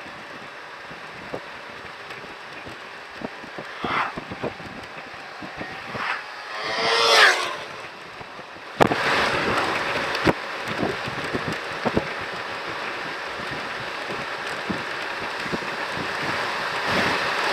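Wind and road noise on a moving motor scooter, with a brief pitched sound about seven seconds in. About nine seconds in the wind noise jumps suddenly louder and stays up.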